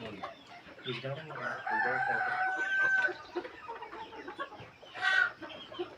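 A rooster crowing once, starting about a second in and ending on one long held note, with chickens clucking around it and a short call near the end.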